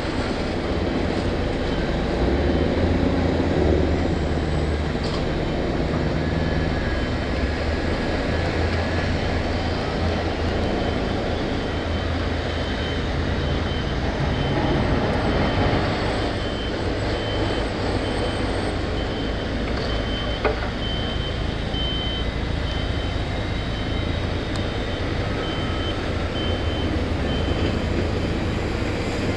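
Heavy diesel earthmoving machinery running steadily with a deep engine rumble. Through the second half, a reversing alarm beeps repeatedly over it.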